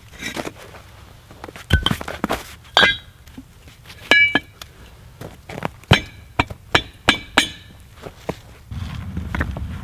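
Salvaged clay bricks knocked and clinked against one another as they are stacked by hand into a fire pit: a series of sharp clinks and dull knocks, a few of them ringing briefly.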